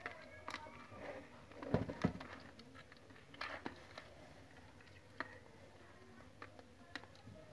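Faint clicks and rustles from a mother cat moving over her newborn kittens in a cardboard box, with a few short high squeaks near the start and a couple of dull thumps about two seconds in.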